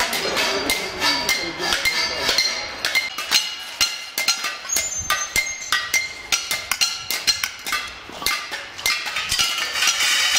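Steel tubing for wheelchair frames clanking and being hammered: many irregular metal knocks and clinks, some ringing briefly.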